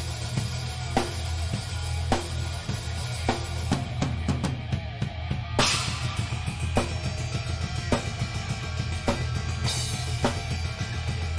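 Live rock band playing an instrumental passage, the drum kit up front: a hard snare hit about once a second over bass drum and a dense, heavy low end from bass and guitars. Cymbal crashes ring out near the middle and again near the end.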